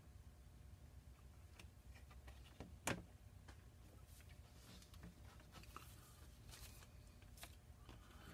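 Near silence with faint scattered clicks and taps of small metal parts and a photo-etch bending tool being handled on a cutting mat, with one sharper click about three seconds in.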